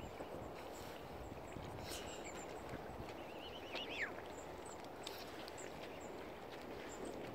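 Open-air lakeshore ambience: a steady low rushing noise. A short warbling bird call about four seconds in ends in one quick falling note.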